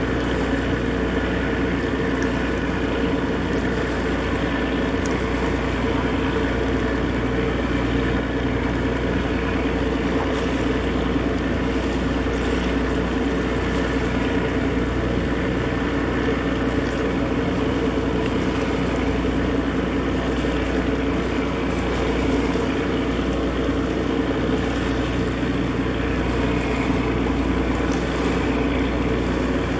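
Steady low drone of a large container ship's diesel machinery, a constant hum with a deep rumble beneath, unchanging throughout.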